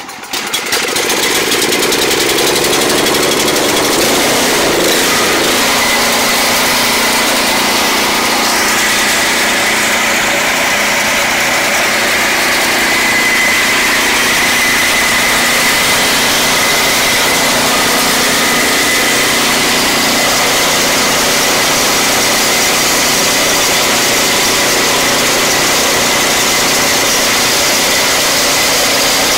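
Snapper 824 snowblower's Briggs & Stratton 8 hp single-cylinder engine, just started on choke, picking up speed over the first few seconds and then running steadily.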